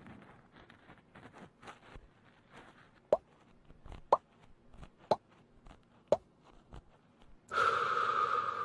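Close-up ASMR mouth sounds at the ear: soft lip clicks, then four sharp kiss-like lip pops about a second apart, each with a quick rising squeak. Near the end a louder, steady pitched sound begins.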